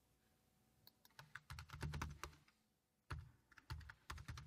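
Typing on a computer keyboard: two short, faint runs of keystrokes, the first starting about a second in and the second about three seconds in.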